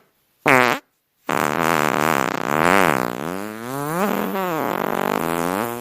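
Fart sound effect: a short fart falling in pitch, then a long drawn-out fart that wavers up and down in pitch for about four and a half seconds before cutting off.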